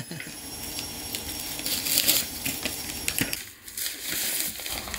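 Brown wrapping paper tearing and tissue paper crinkling as a parcel is pulled open by hand: a dense run of quick crackles and rips that eases off for a moment past three seconds in, then picks up again.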